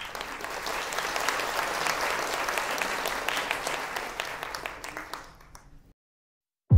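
Applause from a crowd: dense clapping that fades away about five seconds in, followed by silence.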